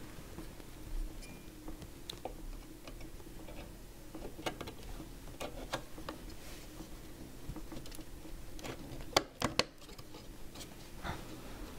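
Scattered small clicks and taps of a RAM module being handled and pressed into a memory slot on an Apple G4 Cube's logic board, with a few louder, sharper clicks about nine seconds in.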